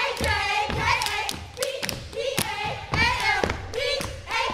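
Step team stomping and clapping in rhythm, with sharp hits several times a second, while voices shout a chant together over the beat.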